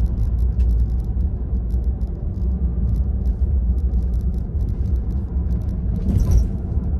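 Steady low rumble of road and tyre noise inside the cabin of a moving Tesla Model 3 Performance, an electric car with no engine note. A brief louder swell comes about six seconds in.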